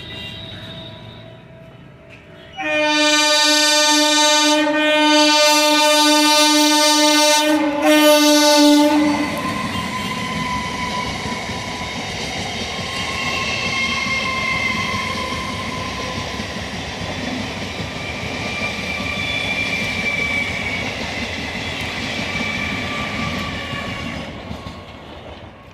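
Indian Railways train sounding its horn, one long blast and then a short one, as it approaches. It then passes in a steady rumble of wheels on rails, with thin high whines above it that fade toward the end.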